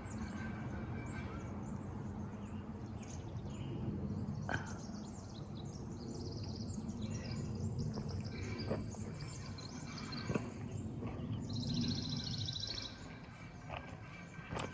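Forest birds singing and chirping in scattered high calls, with one fast rapid trill about twelve seconds in, over a steady low background noise and a few soft knocks.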